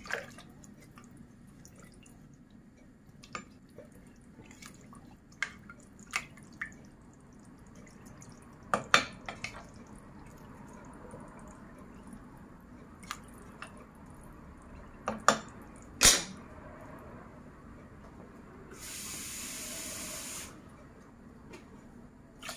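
Wooden spatula stirring water with a whole chicken and potato slices in a steel pressure cooker pot: liquid sloshing, with scattered knocks of the spatula against the pot. A steady hiss lasts about two seconds near the end.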